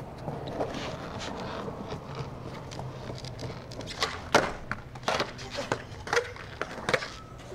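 Skateboard rolling on stone paving, then a 360 flip: a sharp pop about four seconds in, followed by knocks as the board lands under the rider and rolls on.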